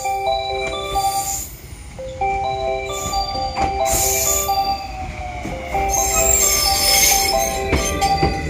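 Ending music: a light melody of short notes on mallet percussion like marimba or glockenspiel. Under it is train noise, a rushing hiss with a few clicks, loudest in the second half.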